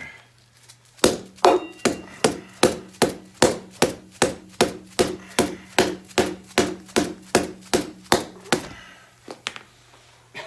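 A hammer striking in a steady run of about twenty sharp blows, roughly three a second, stopping a little before the end, with a low steady hum underneath.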